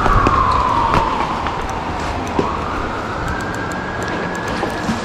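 Emergency vehicle siren wailing: its pitch falls slowly over about two seconds, then rises again. Underneath is the steady rush of river water.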